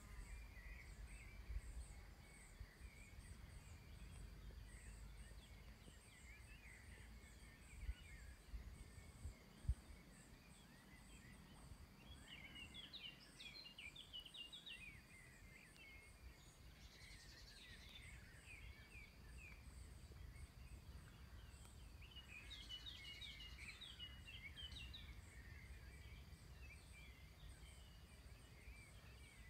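Quiet outdoor ambience, near silence: birds chirp in short bursts, most clearly a little past the middle and again after about twenty seconds. Under them runs a faint, high, evenly pulsing insect trill and a low rumble. Two brief thumps come about eight and ten seconds in.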